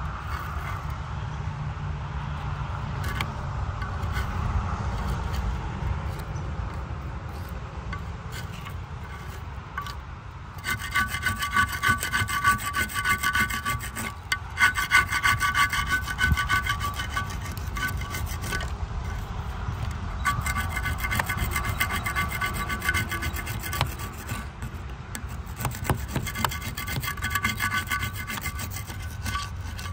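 Abrasive scraping and rubbing on rusted metal, as in cleaning rust off an old metal poor box. About ten seconds in, a steady whine joins the rubbing and runs in stretches with short breaks.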